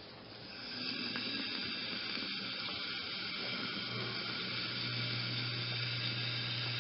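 Gas-producing reaction fizzing in a glass flask: a steady hiss of bubbling that builds over the first second and then holds. The reaction is endothermic, drawing heat so the mixture turns colder as it fizzes.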